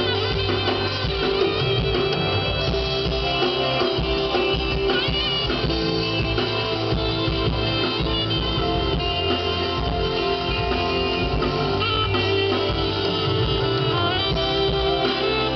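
A live band playing continuously during a sound check.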